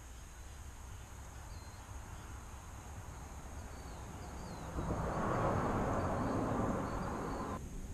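A vehicle crossing the road bridge overhead: a rushing tyre noise that swells about five seconds in and cuts off abruptly near the end.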